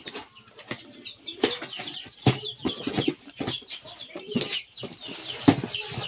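Cardboard parcel boxes being handled and torn open: packing tape ripping, with cardboard rustling and knocking in a run of sharp, short sounds. Chickens cluck faintly in the background.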